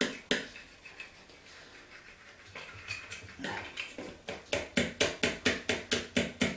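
Pancake batter being beaten by hand in a plastic mixing bowl, the utensil clicking against the bowl with each stroke to work out the lumps. It starts slow and soft, then from about four seconds in becomes a quick, even beat of about five clicks a second.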